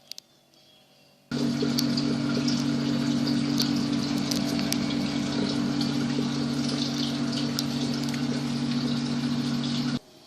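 Air conditioner running: a loud steady low hum under a rushing hiss with faint crackles. It cuts in about a second in and stops abruptly near the end.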